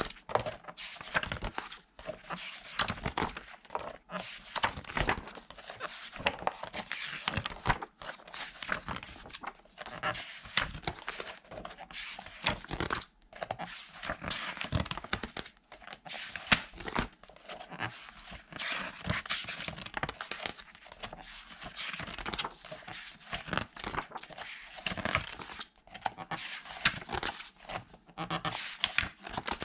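Pages of a large art book being turned and handled: repeated paper rustling and flapping, with short scrapes and slaps as the pages are turned.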